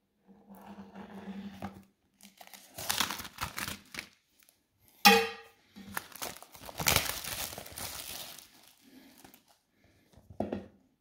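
Irregular crinkling and rustling in bursts, like something being crumpled or torn, with a short, sharp, loud sound about five seconds in.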